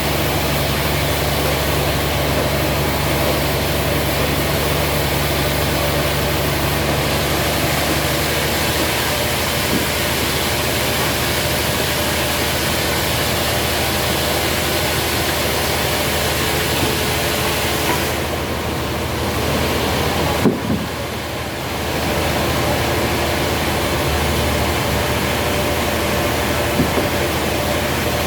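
Sawmill machinery running with a steady mechanical hum and noise. It drops off for a few seconds about two-thirds through, with one sharp knock, then picks up again.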